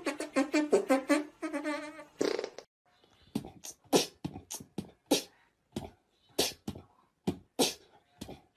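Brass-led novelty music that stops about two and a half seconds in. Then comes a run of short, sharp pops and clicks, about fifteen of them over five seconds at an uneven pace.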